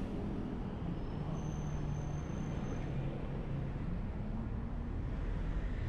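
Bus engine running steadily under road and traffic noise as the bus drives and turns. A faint high whine is heard briefly about a second and a half in.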